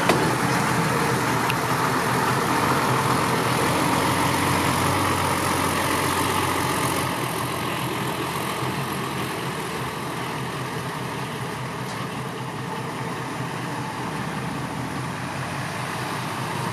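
Six-wheel dump truck's engine running steadily, getting a little quieter after about seven seconds.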